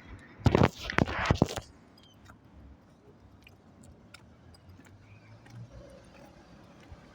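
A burst of rustling and scraping close to the microphone, starting about half a second in and lasting about a second, then quiet with a few faint clicks.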